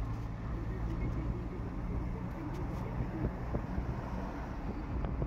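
A car driving on a hill road, heard from inside the car: steady engine hum and road rumble.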